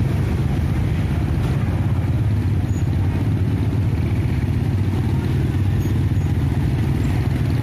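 Steady low rumble of vehicle engines moving at walking pace: the truck hauling a sound-system speaker stack and motorcycles close behind it.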